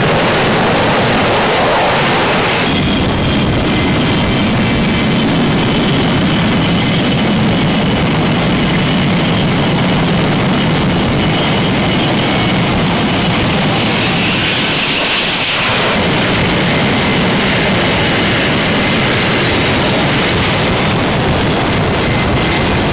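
Fighter jet engines running on an aircraft carrier flight deck: a loud, steady roar with thin high whines. The sound changes abruptly about three seconds in. Around the middle comes a louder rush with a high whistle that rises and falls, as a jet passes close.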